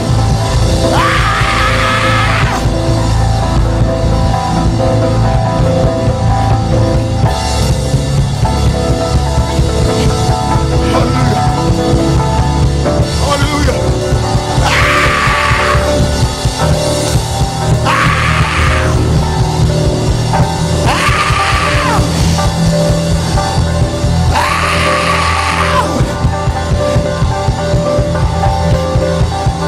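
Loud live worship music with a rock beat and a heavy low end, played straight through. A voice shouts over it in long bursts of a second or two, about six times.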